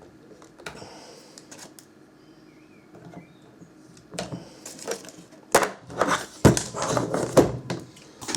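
Clattering clicks and knocks from a circuit board and tools being handled on a workbench, faint at first and growing busy and loud about four seconds in.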